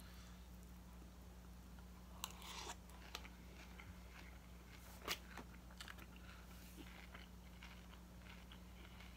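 Faint chewing of a crunchy cereal-based cannabis edible, with a few sharper crunches about two and five seconds in, over a low steady hum.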